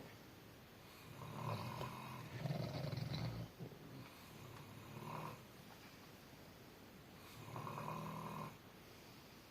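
Snoring in uneven bouts: two long snores back to back starting about a second in, a short one about five seconds in, and another longer one near eight seconds.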